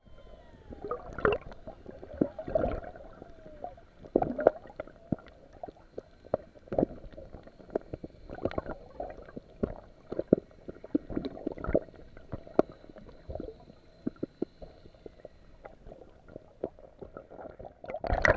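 Underwater sound picked up by a submerged camera: muffled water wash with irregular gurgles and sharp knocks and clicks, some of them loud, as swimmers move through the water around it.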